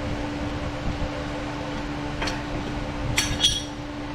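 Metal brake parts clinking as a brake pad with its spring spreader clips is worked into the caliper bracket: a light click about two seconds in, then two sharp ringing clinks a little after three seconds. A steady fan-like hum runs underneath.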